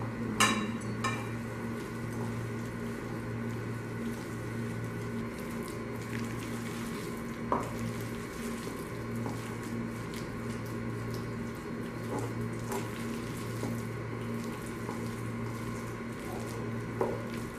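Hands squishing and kneading a thick potato-and-spinach pakora mixture with gram flour in a ceramic bowl, with a few sharp knocks against the bowl. A steady low hum runs underneath.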